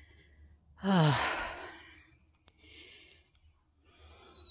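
A woman's breathy, weary sigh, an "oh" that falls in pitch, about a second in, followed by faint breathing. Near the end a bird starts calling with a thin high note.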